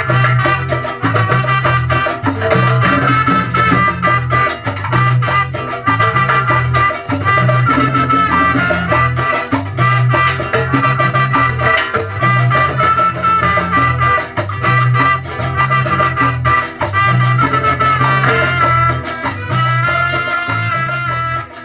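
A live band rehearsing an instrumental passage of Latin-style music, recorded as room sound, with a pulsing bass line under percussion and melody lines.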